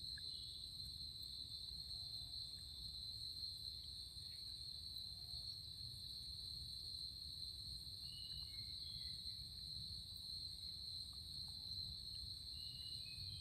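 Evening insect chorus: crickets giving a steady, continuous high-pitched drone, over a low rumble. A few faint short chirps come near the end.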